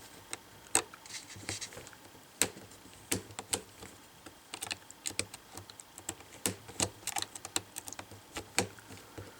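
Small PH0 Phillips screwdriver slowly backing a bezel screw out of a Lenovo ThinkPad Edge E545's plastic screen bezel: a run of light, irregular clicks and ticks, several a second.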